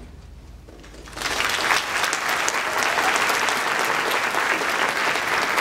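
Audience applause breaking out about a second in and going on steadily, as the choral piece ends.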